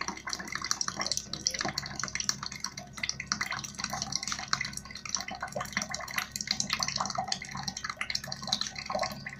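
A thin stream of cooking oil pouring from a dispensing machine's nozzle into a plastic cup, with an irregular patter of drips and small splashes. A low steady hum runs underneath.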